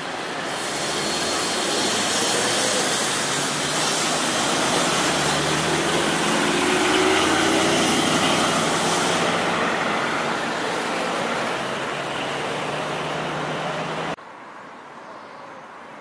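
City street traffic: cars and a box truck driving past, the truck's engine and tyres loudest as it passes close about halfway through. Near the end the sound drops abruptly to a much quieter street background.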